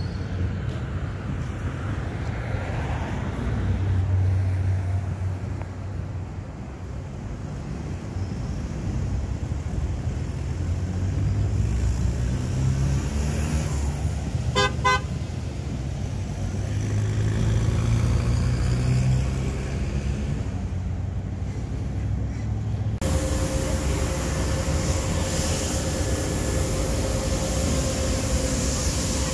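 Cars and trucks driving slowly past, their engines running, each swelling as it passes. About halfway through, a vehicle horn gives a quick burst of short honks.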